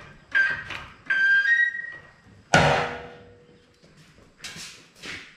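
Hydraulic floor jack being pumped, with a short high squeak on each stroke, about one and a half strokes a second. Then a sharp metal clank with a ringing tone about two and a half seconds in, followed by a couple of faint knocks.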